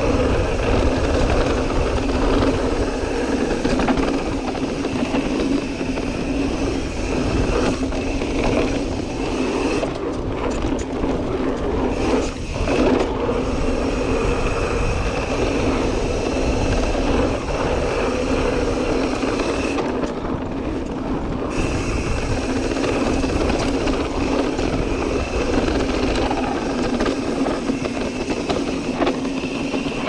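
Mountain bike ride on a dirt trail: a steady rush of wind on the helmet-mounted microphone and tyre noise, with rattling from the bike, dipping briefly around twelve seconds in.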